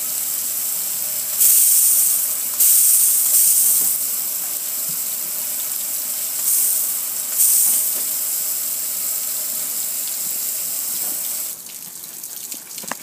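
Soapy water spraying onto a metal gas grill and splashing off it, a steady hiss with four sudden louder surges of about a second each, easing off near the end.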